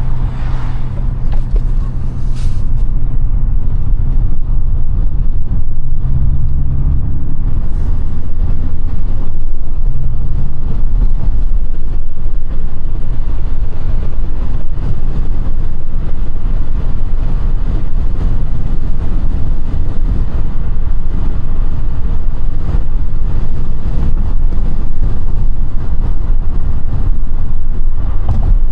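Audi A5 8T driving on the road. Its engine drone is heard steadily for about the first ten seconds, then sinks under a loud low rumble of road and wind noise.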